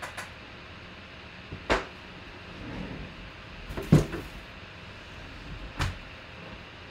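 Cardboard box handled and set down on a tabletop: three knocks, the loudest about four seconds in.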